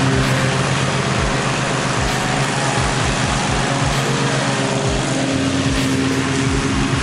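Gravely zero-turn mower's engine running steadily, with irregular low thumps underneath.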